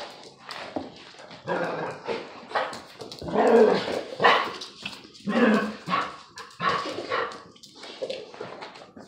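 Dogs in rough play, barking in a rapid series of short outbursts, loudest about halfway through.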